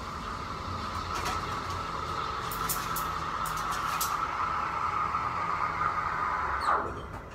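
Espresso machine steam wand texturing milk in a metal pitcher: a steady hissing whine that grows a little louder, with a few light clinks. Near the end the steam is shut off and the sound drops away with a falling pitch.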